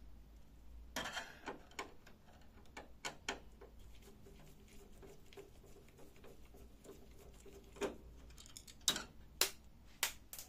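Quiet clicks and ticks of a hand screwdriver turning out the screws that hold the fuser unit in a Canon imageRUNNER copier, metal on metal. A few sharper clicks come near the end.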